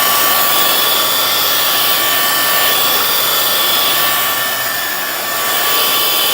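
Hoover FloorMate SpinScrub hard-floor cleaner running: a steady, loud motor whine and rush of suction and scrubbing, dipping briefly about five seconds in.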